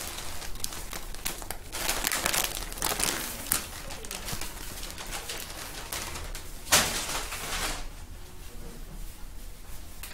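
Rustling and crinkling of a suit's fabric as it is handled and unfolded, in a run of short bursts with one louder rustle about two-thirds of the way through.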